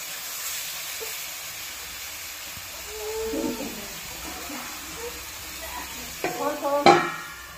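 Tomatoes and spices frying in hot oil in a metal kadai: a steady sizzle. A sharp knock comes near the end.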